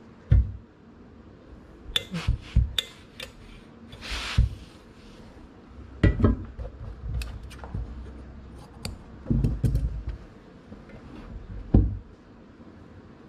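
Irregular knocks and thumps of a steam iron and fabric being handled on a worktable, with a brief rustle near the middle, as fusible interfacing is pressed onto a hem.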